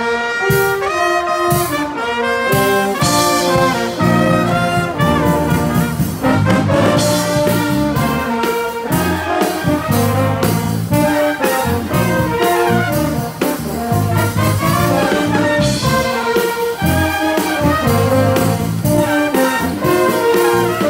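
A pep band playing an up-tempo tune, with brass horns carrying the melody over a drum beat.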